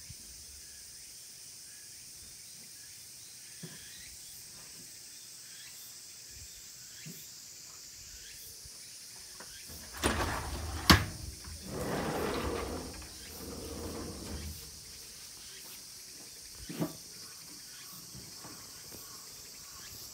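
Insects chirring steadily. About halfway through comes a brief clatter with one sharp knock, the loudest sound, followed by a few seconds of noisy shuffling.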